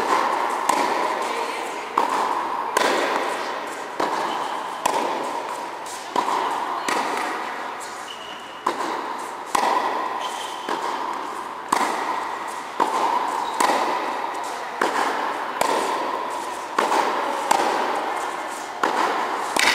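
Tennis ball struck by rackets in a volley exchange, a sharp pop about once a second, each ringing on in the echo of an indoor tennis hall.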